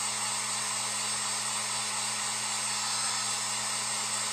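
Handheld hot-air dryer blowing steadily with a low motor hum and a faint high whine, drying freshly stencilled chalk paste so it won't smear.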